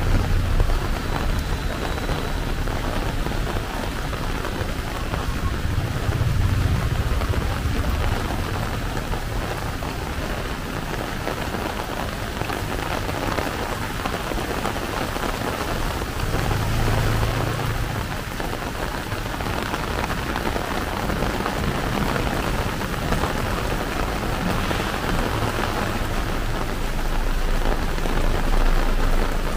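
Heavy rain pouring steadily, with a low rumble swelling and fading twice, about six and seventeen seconds in.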